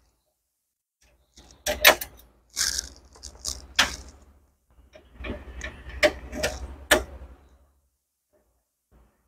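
Screwdriver turning screws out of the sheet-metal plate inside a Canon imageCLASS MF3010 printer: a run of sharp metallic clicks and scrapes that starts about a second in and stops a couple of seconds before the end.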